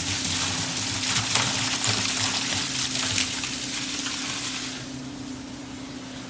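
Water gushing and spraying over a steady low mechanical hum; the rush eases off about five seconds in while the hum carries on.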